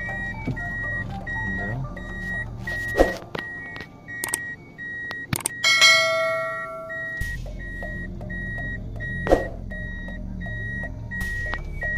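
Toyota Corolla's reverse-gear warning beeper sounding in the cabin, a steady high beep about once a second, as the car backs up slowly in reverse. Two sharp knocks come about three and nine seconds in, and a loud ringing tone lasts about a second and a half near the middle.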